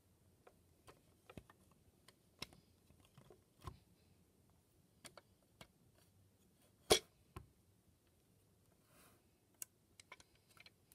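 Hard plastic parts of a Transformers Siege Ultra Magnus action figure clicking as hinged panels are folded and pressed into place: scattered light clicks, with one louder click about seven seconds in.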